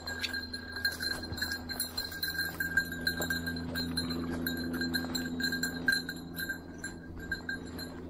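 A bird dog's collar bell jingling continuously as the dog works a scent trail through the brush, with scattered crunches of footsteps through dry leaves and brush.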